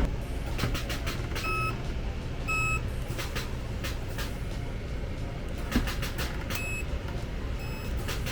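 Workshop noise: a steady low hum with scattered sharp clicks, and four short electronic beeps, two close together near the start and two more near the end.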